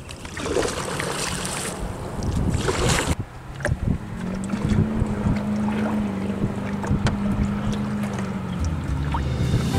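Canoe paddle splashing in lake water, with wind buffeting the microphone, for the first three seconds or so. After that a steady low drone runs under lighter water sounds.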